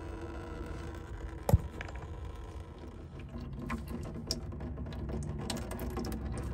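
Hand tools at work on a tow truck's hydraulic hose fittings at the PTO pump: one sharp metallic knock about a second and a half in, then scattered light clicks and ticks over a low steady hum.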